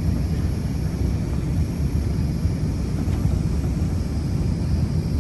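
Steady low rumble inside the passenger cabin of an Emirates Airbus A380, the noise of its engines and airflow heard from a window seat.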